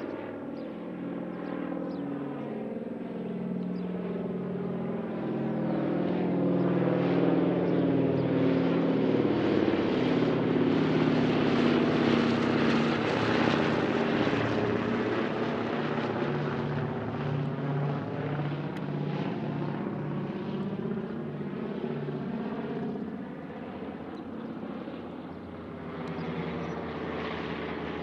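Boeing B-17G Flying Fortress's four Wright R-1820 Cyclone radial engines droning through a flyby. The drone swells to its loudest about halfway through, its pitch drops as the bomber passes overhead, and then it fades away.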